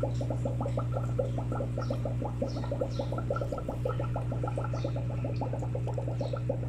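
Aquarium air pump humming steadily while air bubbles from the air stone through the tank water in a rapid, continuous run of small gurgling pops.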